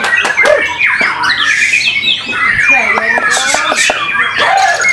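White-rumped shamas singing loudly at a songbird contest: a dense, overlapping mix of whistles, trills and harsh chattering calls from several birds at once.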